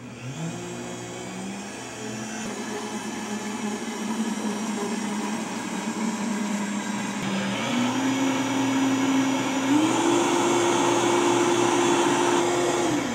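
Variable-speed countertop blender starting up and running, with liquid churning in the jar. Its motor whine steps up in pitch twice, about halfway through and again a little later, as the speed dial is turned up, then starts to wind down as it is switched off at the end.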